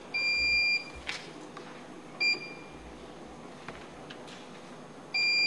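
Electronic voting system beeping: a high, steady beep about two-thirds of a second long, a short beep a little over two seconds in, and another long beep near the end, marking the opening and closing of a council vote.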